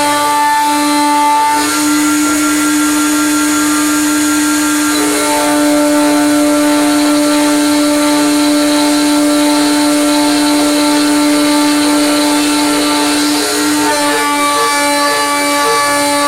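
A CNC mill's high-speed Chinese spindle motor runs with a steady whine while an end mill cuts aluminium, with a changing cutting noise over it. The tone shifts about five seconds in and again near the end as the cut changes.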